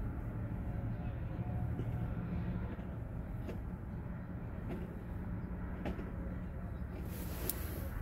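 Steady low rumble heard from inside a parked car, with a few faint clicks and a short hiss near the end.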